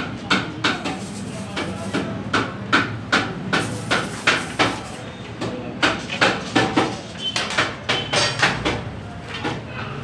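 Hammer blows on the iron frame of a rocking chair being assembled, about two to three sharp knocks a second, with a short pause about halfway through.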